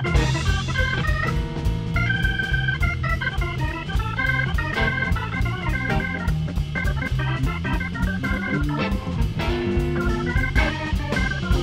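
Live blues band in full swing: an electric organ plays melodic lines over a drum kit keeping a busy, steady beat. The whole band comes in at once right at the start.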